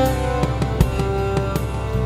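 Background music: held instrumental tones over a steady drum beat.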